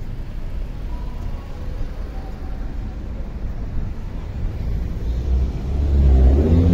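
Steady low rumble of street traffic. Over the last second or two a car engine grows louder as a sedan drives past close by.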